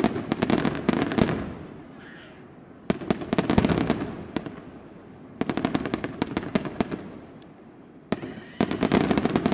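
Aerial firework shells bursting in four volleys of rapid bangs and crackling, each volley lasting a second or so and coming about every three seconds.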